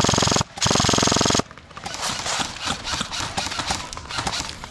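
Airsoft rifle firing two rapid full-auto bursts close by: a short one at the start and a longer one a moment later, ending about a second and a half in. Quieter scattered clicks and rustling follow.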